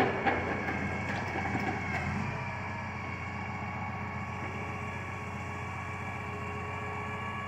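Logging truck's diesel engine running steadily while it powers the truck's log loader, with a few light knocks in the first couple of seconds.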